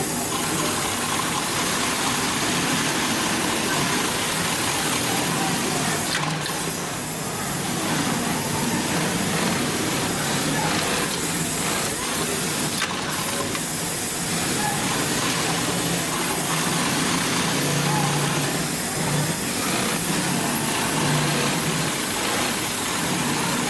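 Hightex 204-370-DP post-bed twin-needle walking-foot sewing machine running steadily, stitching through heavy leather.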